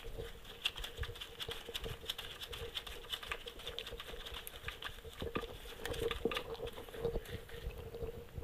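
Small, irregular metal clicks and taps of a hand tool on the engine's bolts and case as a sensor bolt is being tightened.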